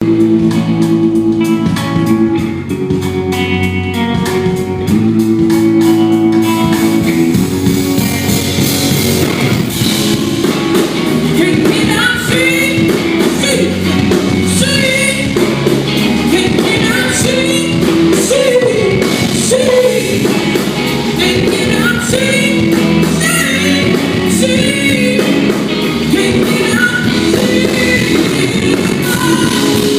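A live band playing a song at sound check, with a woman singing lead. Held chords open the song, and the full band and vocal come in about eight seconds in.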